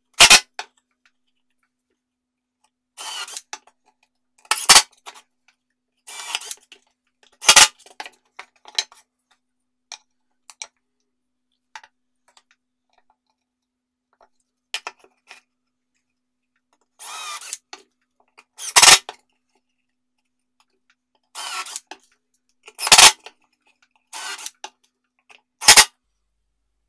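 Cordless drill/driver driving wood screws into plywood in short separate runs a few seconds apart, with silence between them. Several runs end in a loud sharp clack.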